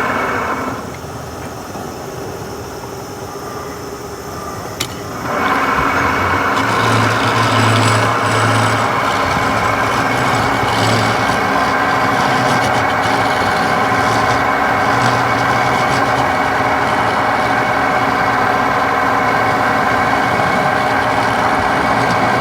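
Wood lathe running with a steady hum, and a turning tool cutting the spinning wood in a continuous scraping hiss. The sound is quieter and duller for the first few seconds, then the cutting comes in fuller after a click about five seconds in.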